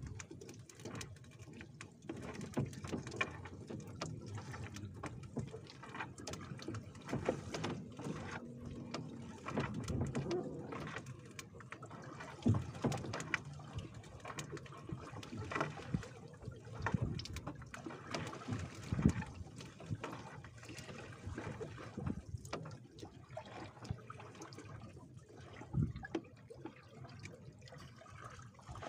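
Water splashing and dripping off a wet fishing net as it is hauled up out of the water, with irregular small splashes and drips throughout.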